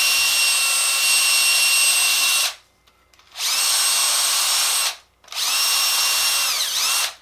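Cordless drill spinning a bore brush on a rod inside an AR-15 bolt carrier to scrub out carbon. It runs in three bursts with short pauses between, its whine rising each time it spins up.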